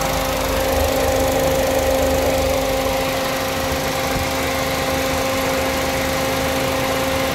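Suzuki Alto VX 660cc three-cylinder engine idling steadily with the A/C compressor engaged, a smooth, even hum. There is no vibration or noise from the compressor, a sign the idle is holding now that the A/C is wired to the ECU.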